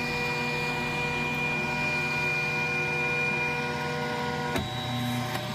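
Flashforge Dreamer 3D printer running with a steady hum of several tones. About four and a half seconds in, a click and a change in the tone come as the print job ends.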